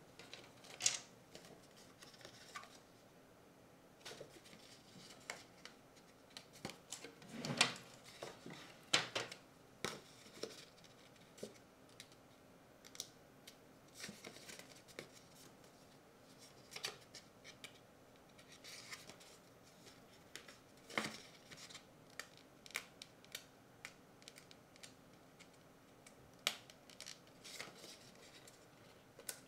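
Irregular small clicks, taps and knocks of plastic PO-80 Record Factory kit parts being handled and set down on a desk, the platter disc among them. A louder run of knocks comes about a quarter of the way in, with single sharper clicks later on.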